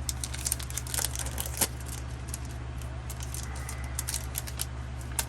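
Pokémon trading cards being handled and flipped through: a run of quick, light clicks and snaps, bunched in the first two seconds and again about four seconds in, over a steady low hum.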